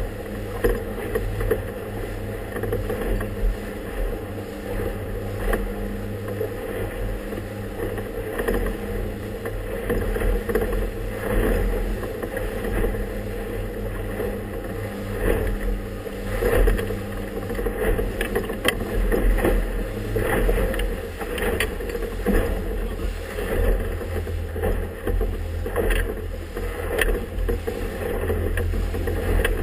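Inflatable motorboat under way across choppy water: a steady motor drone, with the hull knocking and splashing irregularly through the chop.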